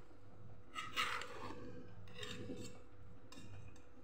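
Metal knife scraping and clinking against a steel dhokla steaming plate as it prises steamed dhokla pieces loose, with the sharpest scrape about a second in and another a little after two seconds.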